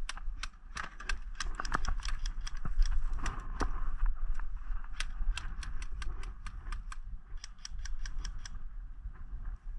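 Airsoft guns firing a long string of sharp snapping shots, several a second with some quick runs, stopping near the end, over a steady low rumble of wind and movement on the camera microphone.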